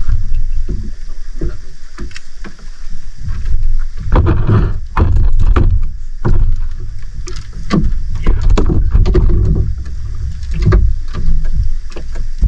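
Water slapping and splashing around a small boat at sea, over a heavy low rumble, with irregular knocks and splashes throughout, thickest in the middle.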